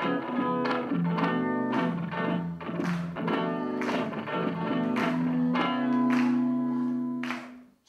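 Electric guitar (a red Flying V-style solid body) strumming chords in a loose rhythm, ending on a chord left ringing for about two seconds that is cut off just before the end.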